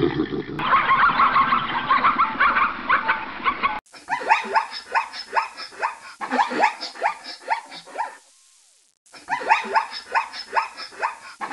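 Zebra calling: a rapid run of high, barking yelps, each dropping in pitch, repeated in several bursts with a short break about eight seconds in.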